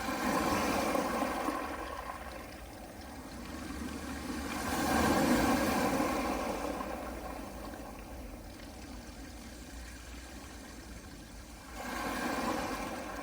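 Small sea waves washing onto a pebble beach, the surf swelling and falling back three times a few seconds apart.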